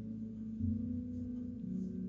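Soft ambient background music of sustained, bell-like tones, like a singing bowl, with the held notes changing about half a second in and again near the end.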